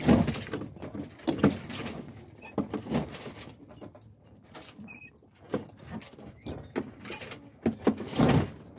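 Sails and rigging of a becalmed sailboat slapping and knocking at irregular intervals as swells roll the boat under not enough wind to keep the sails full, with a brief squeak about five seconds in.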